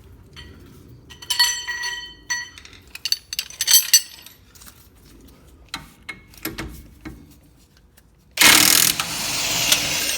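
Metal tools clinking and clicking against the suspension hardware. About eight seconds in, a loud impact wrench starts up, hammering on the tight lower control arm bolt.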